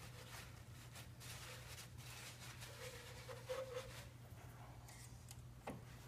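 Quiet handling sounds: soft rustling and a few light clicks of hands working a fuel line connector and paper towel among engine-bay hoses, over a steady low hum.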